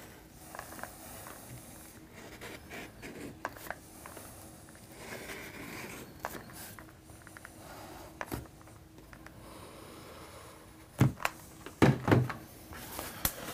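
Quiet handling noises of hot-gluing a foam-board wing: small clicks and rustles as the glue gun is worked along the spars, with a few louder sharp knocks near the end.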